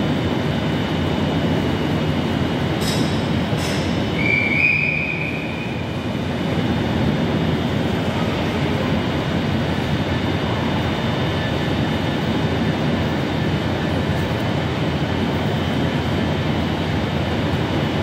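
Steady running noise of a Class 390 Pendolino electric train standing at the platform, with a brief high squeal about four seconds in.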